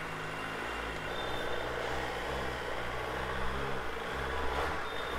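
Suzuki Hayabusa's 1340 cc inline-four engine idling steadily on its stock, unmodified exhaust.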